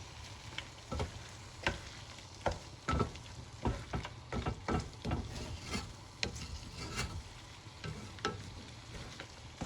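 A spoon stirring and scraping a pot of sizzling butter chicken sauce (tomato, spices, cashew nuts and butter), knocking against the pot every second or so.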